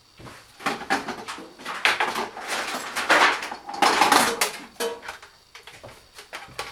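Hard plastic parts of a Makita 18V battery pack being handled and knocked together on a bench: an irregular run of clicks, knocks and rustles, busiest in the middle.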